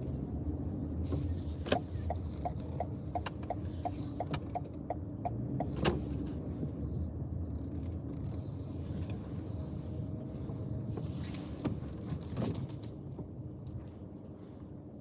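2015 Hyundai Sonata running on the road: a steady low rumble, with a run of about ten evenly spaced ticks, roughly three a second, in the first few seconds and a sharp thump about six seconds in.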